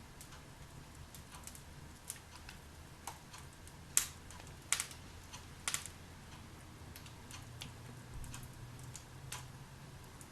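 Wood fire crackling in a fireplace: irregular sharp snaps and pops, the loudest a cluster about four to six seconds in.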